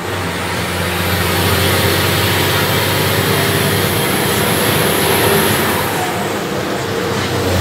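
Chiva bus engine running steadily with a low hum, mixed with road noise, heard from inside the cab as it drives.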